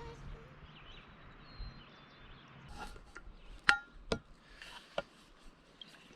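A few sharp clicks and knocks, the loudest about halfway through, over a faint steady hiss of outdoor background.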